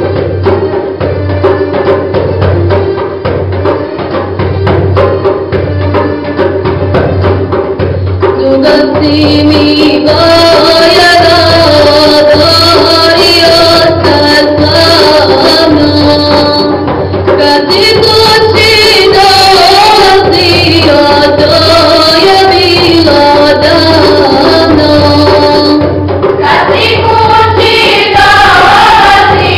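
Choir singing an ilahija, a Bosnian Islamic devotional song, over a steady hand-drum beat. The drumming starts alone, voices come in about a third of the way through, and higher voices join near the end.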